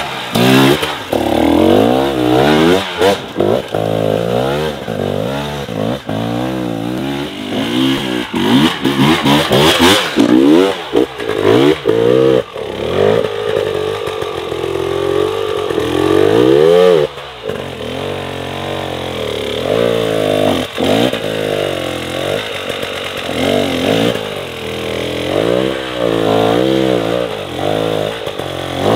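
Dirt bike engines revving hard and falling back again and again as the bikes claw up a steep, rutted hill climb under load.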